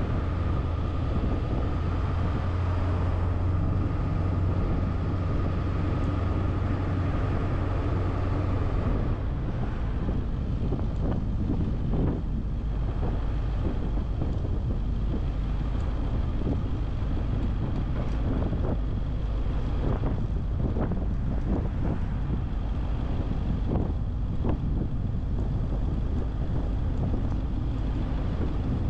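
Car driving along a street: steady road and wind noise. A low steady hum stops about nine seconds in, after which faint scattered knocks come through.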